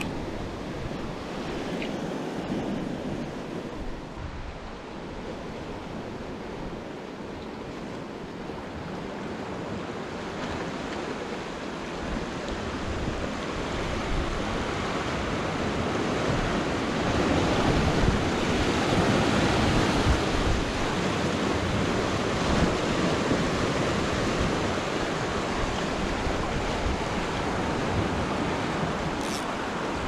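Ocean surf breaking and washing around the rocks below, a steady rushing that swells louder about halfway through and then eases a little.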